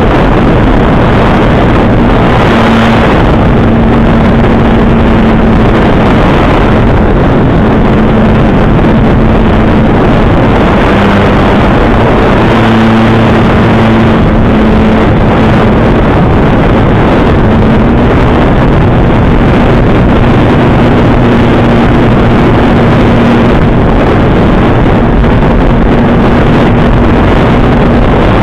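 Air Tractor's engine and propeller running steadily in flight, heard from a camera on the wing: a loud, constant drone with a hum that shifts slightly in pitch as the throttle changes, mixed with rushing air.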